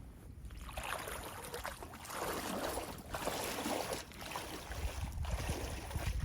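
Water splashing and sloshing in repeated surges, about one a second, as someone moves through shallow water.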